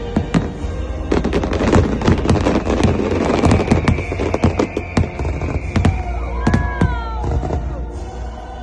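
Fireworks display: a dense, rapid run of bangs and crackles, with a held whistle-like tone in the middle and gliding whistle-like tones near the end.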